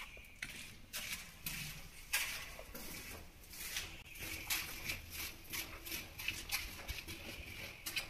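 Footsteps walking down a stone stairway in a narrow passage: irregular shoe strikes, about two a second.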